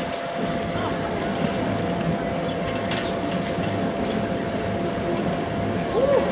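Car-free city street ambience: bicycles rolling past over a steady low rumble, with faint voices of people nearby. A short rising-and-falling squeal comes near the end.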